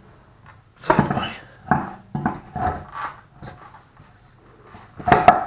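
A run of metallic clanks and knocks from working a wheel, tools and a floor jack on a raised car: a cluster in the first few seconds, then a louder pair of clanks near the end.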